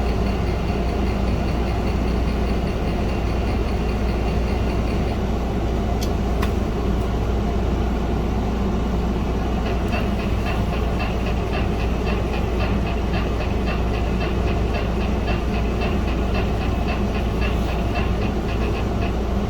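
Commodore 64 demo sound from the Commodore 128's SID chip: a steady low drone, joined about halfway through by a fast, even rhythmic pattern.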